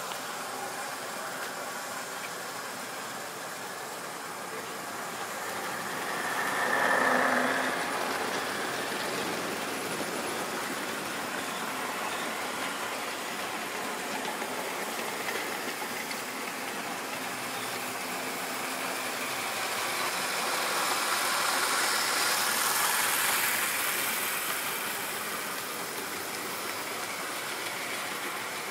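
OO-gauge model trains of Tri-ang and Lima rolling stock running on the layout's track, a steady running noise of wheels and motors. It swells briefly about seven seconds in and again, more broadly, from about 20 to 25 seconds in, as trains pass close by.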